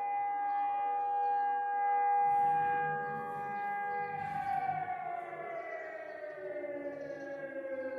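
Civil-defense air-raid siren holding a long steady tone, then winding down from about halfway, its pitch sliding slowly lower.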